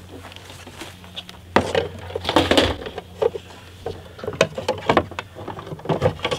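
Scattered clicks, knocks and rustling from hands working cords and plugs at the side of a wooden solar-generator cart.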